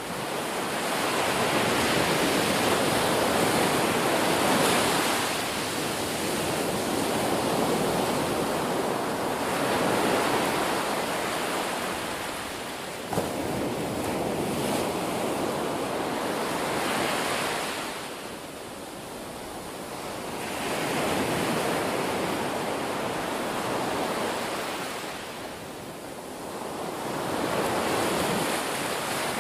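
Sea surf breaking and washing in the shallows: a steady rushing of waves that swells and eases every several seconds.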